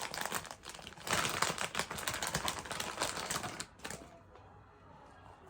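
Plastic toy packaging being handled and opened, a dense run of crinkles and crackles that dies down to faint handling about three and a half seconds in.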